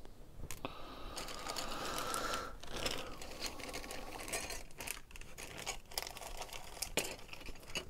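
Clear plastic bag crinkling as it is handled, with many small clicks from the plastic model-kit parts trees inside knocking together.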